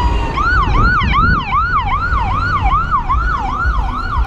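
Emergency vehicle siren: a slow falling wail that switches about half a second in to a fast yelp, falling sweeps repeating about three times a second.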